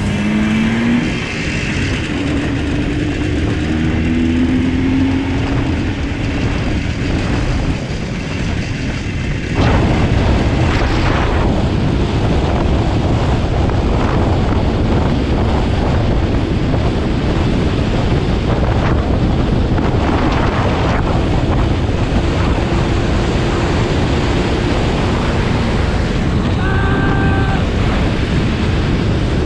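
Motorcycle engine running on the move, its pitch rising and falling with the throttle, then heavily buried under wind noise on the microphone from about a third of the way in.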